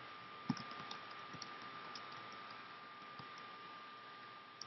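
Faint, irregular clicks of typing on a computer keyboard, a few keystrokes scattered over a few seconds, over a steady background hiss and a faint steady whine.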